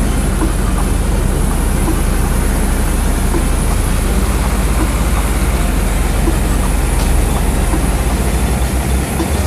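A 4x4 combine harvester running steadily while harvesting, heard from on the machine: a loud, even engine hum.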